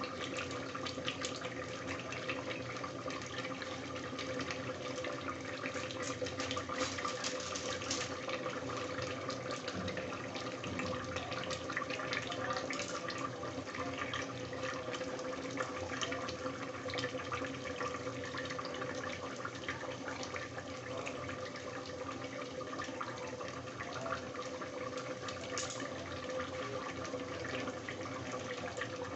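Mutton pieces sizzling and bubbling in hot fat and their own juices in an open aluminium pressure cooker, a steady crackle with a steady hum under it.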